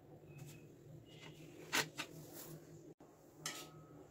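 A metal knife and spatula clicking and scraping lightly against a serving plate while cutting and lifting pieces of set barfi: a few short clicks, the loudest a little under two seconds in. A low steady hum runs underneath.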